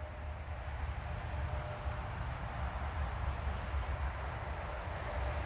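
Outdoor ambience: faint, short, high-pitched insect chirps recurring about every half second over a steady hiss and a low rumble.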